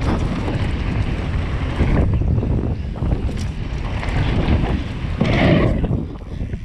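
Wind buffeting a bike-mounted action camera's microphone over the crunch and rattle of a mountain bike's knobby tyres rolling fast down a dirt track. A louder burst about five seconds in as the bike hits the jump, then the noise drops briefly as it leaves the ground.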